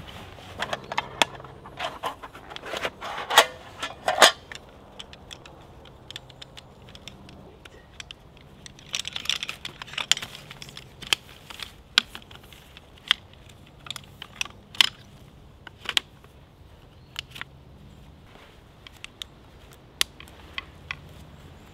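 Rustling of bedding and gear, then the light metal clicks and clinks of a folding camp table's poles being slotted into their corner joints, about one sharp click a second.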